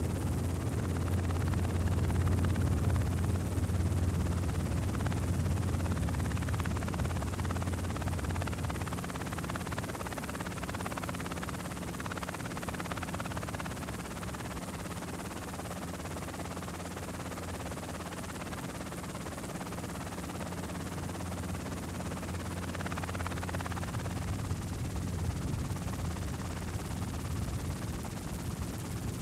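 Steady low drone of an aircraft in flight, engine and airflow noise heard on board, a little louder in the first several seconds before easing off.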